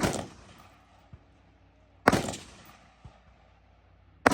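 Three rifle shots fired about two seconds apart, each a sharp crack with a short echoing tail. A faint tick follows about a second after each of the first two.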